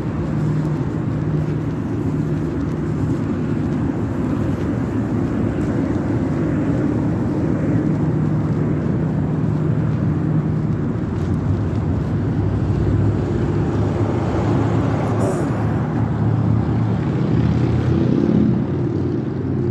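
City street traffic: a steady rumble of engines and tyre noise from cars on the road.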